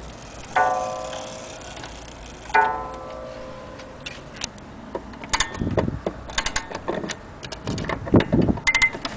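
HAC German wall clock's striking train sounding two strokes about two seconds apart, each ringing out and fading. From about five seconds in there are irregular clicks and knocks as the clock is handled at its dial.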